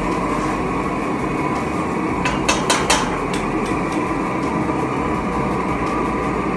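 A home-built metal-melting furnace running with a steady, loud roar while it melts the metal. A few sharp knocks come close together a little past halfway.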